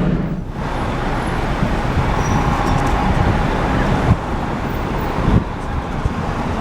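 City street traffic noise: a steady wash of passing cars with a few short knocks.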